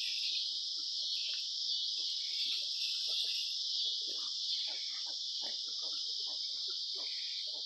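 Mini pigs and their piglets making many short grunts and squeaks in quick, irregular succession, over a steady high-pitched insect chorus.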